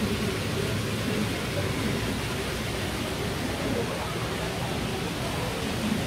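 Steady rush of water circulating and aerating in live-seafood tanks, with faint voices in the background.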